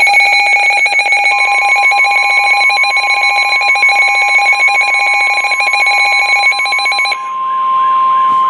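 Weather radio alert tones heralding a severe thunderstorm warning: a harsh, rapidly pulsing electronic alarm, joined about a second in by the steady 1050 Hz warning tone. The pulsing alarm cuts off near the end, leaving the steady tone.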